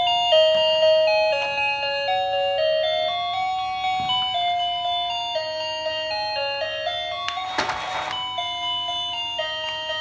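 Toy remote-control car's built-in electronic melody: a tinny, beeping tune of clean single notes stepping up and down without pause. A brief rushing noise cuts in about two-thirds of the way through.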